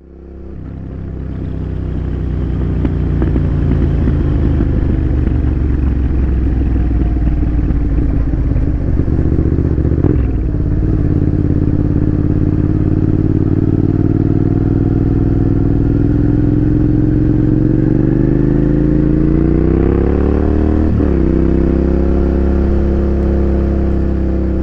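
Motorcycle engine running under way, its pitch rising slowly over several seconds and then dropping sharply, as in acceleration followed by a gear change; there is also a brief break in the sound about ten seconds in.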